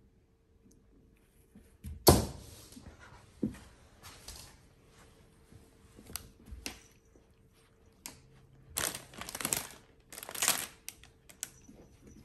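A sharp knock about two seconds in, then several bursts of rustling and crinkling of packaging being handled, the strongest near the end.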